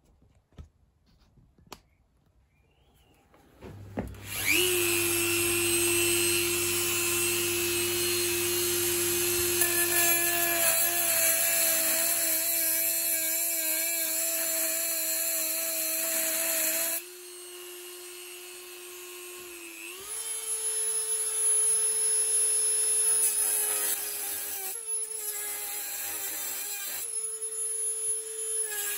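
Dremel rotary tool with a cut-off disc grinding through the sprue of a cast aluminium skull. A few quiet seconds with light clicks come first. About four seconds in the tool starts with a steady whine and a loud gritty hiss of cutting metal. The hiss falls away for a few seconds past the middle, then returns with the whine pitched a step higher.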